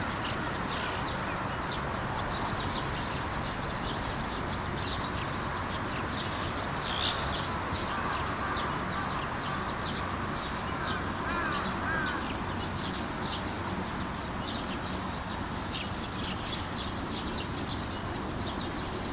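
Starlings calling from a colony: many short, high chirps repeating without pause, with a few gliding calls lower in pitch in the middle, over a steady background noise.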